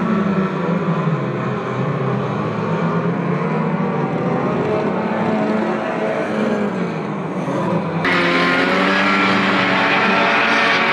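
Several banger racing cars' engines running and revving together, their pitches rising and falling as they circle. About eight seconds in the sound switches abruptly to a louder, brighter engine note.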